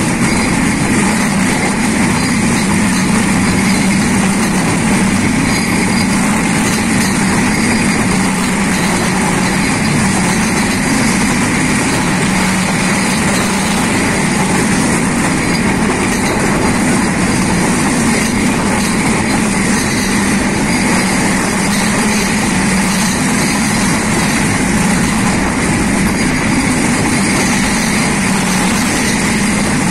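Passenger train running at speed, heard from an open window: a steady, loud rumble and rush of the carriages on the track.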